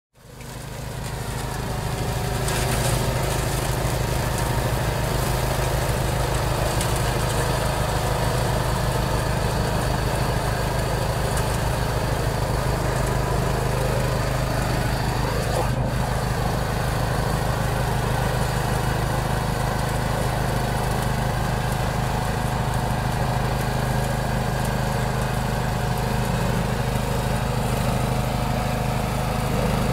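Engine of a DAKR walk-behind single-axle tractor running steadily under load while its front-mounted mower cuts tall grass; the sound fades in over the first second or two.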